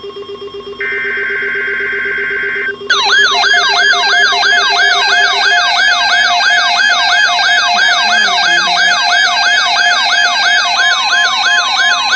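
Emergency Alert System alert for a severe thunderstorm watch: a buzzing SAME header data burst about two seconds long, then a loud siren-like alert tone that sweeps up and down about three times a second.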